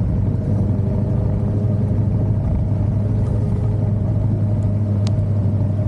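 Suzuki motorcycle engine running at a steady speed under way, a constant hum with a single brief click near the end.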